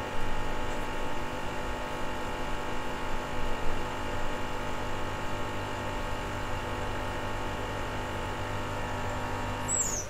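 Rocket Cellini espresso machine's pump running steadily during an espresso extraction, a constant hum, cutting off right at the end as the brew lever is turned down.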